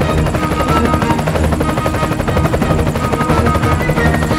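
Helicopter rotor sound effect, a steady rapid chop, over background music.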